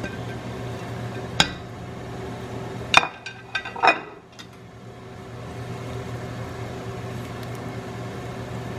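Kitchenware clinking against a metal stockpot: one sharp clink about a second and a half in, then a quick run of clinks and knocks around three to four seconds, over a steady background hum.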